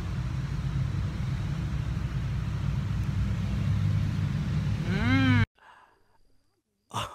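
Steady low rumble outdoors, with a brief rising-and-falling vocal sound near the end, cut off suddenly at about five and a half seconds, followed by a single click.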